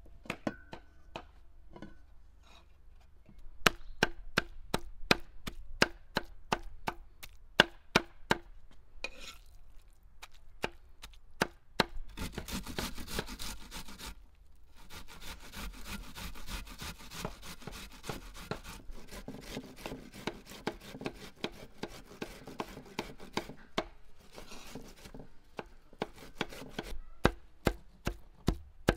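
Onion being grated on a stainless steel box grater into an enamel bowl: rhythmic rasping strokes about three a second, running together into a continuous rasp for a couple of seconds in the middle. Near the end, a knife chopping raw beef liver on a board with quick, regular knocks.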